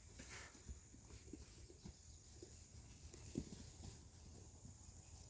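Near silence with faint rustles and a few soft knocks, from chainsaw chaps and their straps being handled and fastened.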